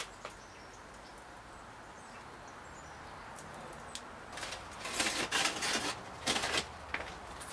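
Faint steady outdoor background, then from about four and a half seconds in, a couple of seconds of irregular scraping and rustling as a foil-covered roasting pan is pulled from the mouth of a brick oven.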